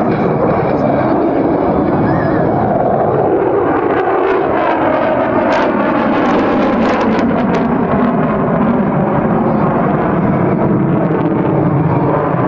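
F-22 Raptor fighter jet flying past, its engines a loud, steady rush of jet noise with some crackle in the middle.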